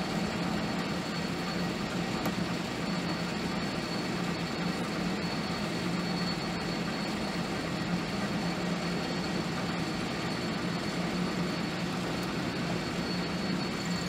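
Metal lathe running steadily while a twist drill in the tailstock chuck cuts into the spinning workpiece: an even machine hum with a thin steady high whine running through it.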